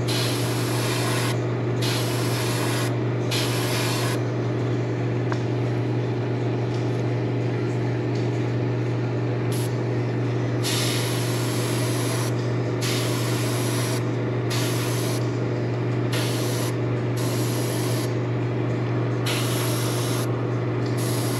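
Gravity-feed airbrush spraying paint in spurts, its hiss starting and stopping as the trigger is worked, over a steady low hum.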